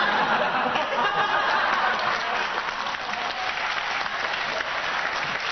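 Studio audience applauding, a dense even patter of clapping that eases off slightly after the first couple of seconds.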